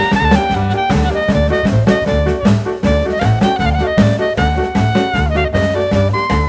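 Background music: an upbeat jazz-swing track with a horn melody over bass and drums in a steady beat.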